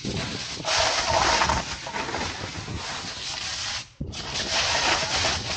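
Snowboard sliding and scraping over firm, rough snow in a half-pipe: a continuous rasping hiss that swells and eases as the rider turns. It breaks off briefly about four seconds in, then carries on.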